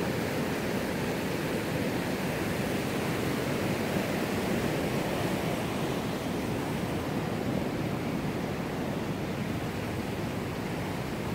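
Steady rushing of river rapids, an even wash of water noise.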